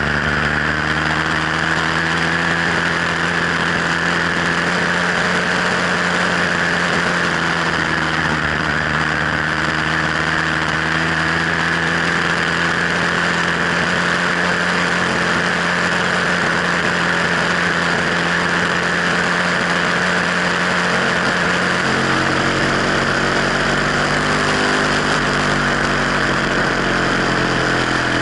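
Sky Hawk 66cc two-stroke motorized bicycle engine running steadily while the bike is ridden, its note shifting about three-quarters of the way through.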